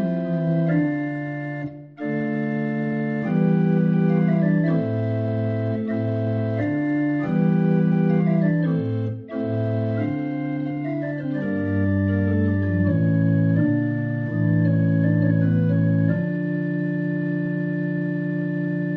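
Slow organ music: held chords that change every second or two, with two very short breaks.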